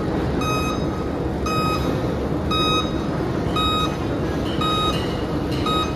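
Dump truck's reversing alarm beeping about once a second, each beep short and high-pitched, signalling that the truck is backing up. A steady heavy machinery rumble runs underneath.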